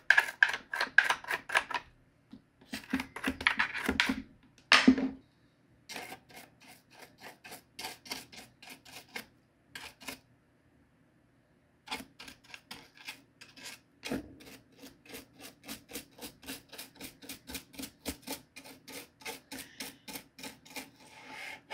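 Toothbrush bristles scrubbing the plastic front panel and alarm slide switches of a clock radio in quick back-and-forth strokes, about four a second, with a brief pause near the middle.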